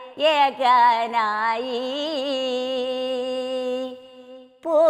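A woman singing a chavittu nadakam song in Malayalam with no accompaniment: a short phrase, then one long note held for about two seconds with a slight waver. The note breaks off near the end, and the next line starts after a breath.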